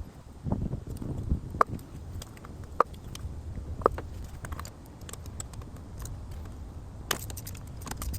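Scattered sharp clicks and clinks of hand tools and small parts being handled during a spark plug and ignition coil change, with a cluster of clicks near the end. A brief low rumble comes about half a second in.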